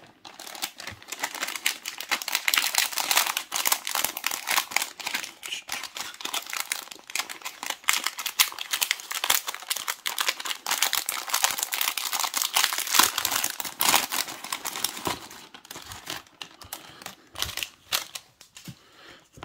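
Clear plastic bag of miniature parts crinkling and rustling as it is handled and opened, a dense crackling that thins out to scattered crinkles near the end.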